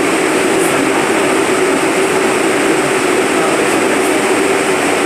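An R62A subway car standing still at a station platform: its onboard equipment gives off a steady hum and hiss, with a steady low tone.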